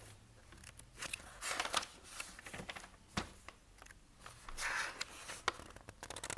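Pages of a paperback picture book being turned and pressed flat by hand: paper rustling and swishing, with a few short clicks and scrapes of hands on paper.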